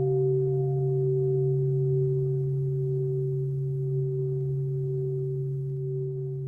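Meditation singing bowl ringing out in one long, slowly fading hum: a deep low tone with a few steady higher overtones, one of them wavering.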